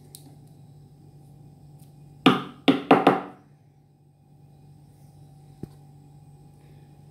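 A knife chopping at a coconut's husk and shell: four quick knocks about two seconds in, all within about a second, then one faint tap.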